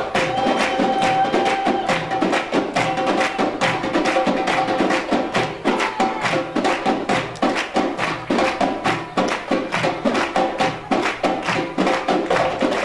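An ensemble of darbukas (Arabic goblet drums) playing a fast rhythm together, many strokes a second, over a few steady held notes from a melody instrument.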